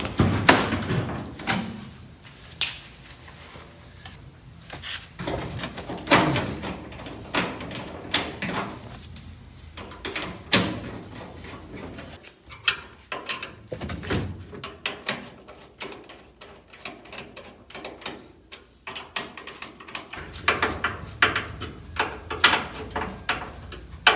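Scattered metal clunks, knocks and clicks of a VW Beetle door being handled and fitted on its hinges, with a few louder clunks among them.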